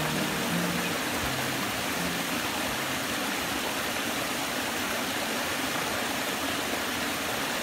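Waterfall: steady rushing of falling water, an even hiss with no breaks.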